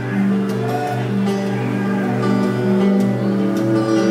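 Live acoustic music: acoustic guitar with a cello playing long, held low notes.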